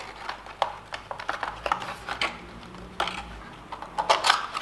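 Cardboard and plastic packaging being handled while an item is worked out of a phone box: a run of small clicks, taps and rustles.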